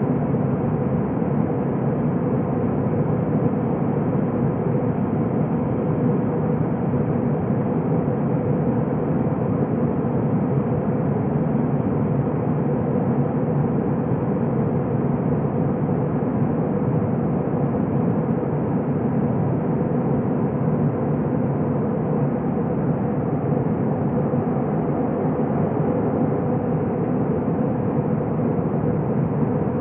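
Airbus A321 cabin noise in flight: the jet engines and rushing airflow make a steady, even drone, heard from inside the cabin, with a faint hum held at one pitch.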